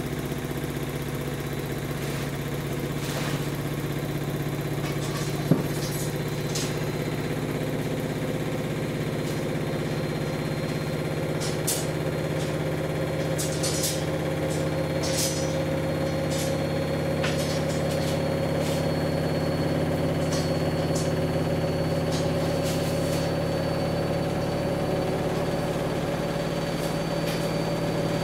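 Samsung WW10N645RBW front-loading washing machine on its spin cycle: a steady motor hum that rises slightly in pitch, with scattered knocks and rattles and one sharp knock about five seconds in. The knocking is the machine bouncing against the walls and floor of its tight cabinet space, as it is not fully level.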